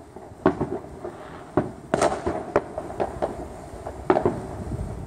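Fireworks going off: irregular sharp bangs, sometimes two or three within a second, the loudest about two seconds in with a brief crackling hiss.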